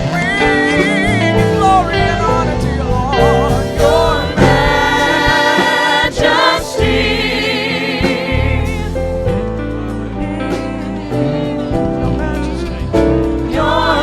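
Gospel-style church worship singing, with wavering, vibrato-laden voices held over a continuous instrumental accompaniment.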